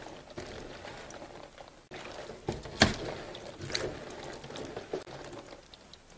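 Shishito peppers being rubbed and swished by gloved hands in a stainless steel bowl of water: wet sloshing and splashing, with two sudden louder moments about three and four seconds in.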